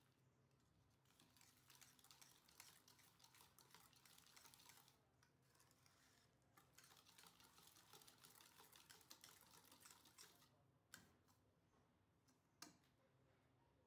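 Faint rapid clicking and scraping of a wire balloon whisk beating thick egg batter in a stainless steel bowl, pausing briefly midway. Near the end the whisk knocks against the bowl twice.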